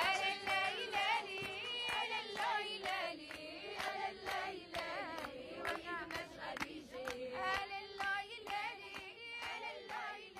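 Outro song: several voices singing together over steady hand clapping.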